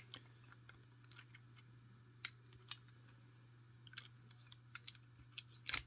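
Faint, scattered light metal clicks from a laminated steel padlock being turned in the hand as its shackle is rotated into position, with a louder click near the end, over a low steady hum.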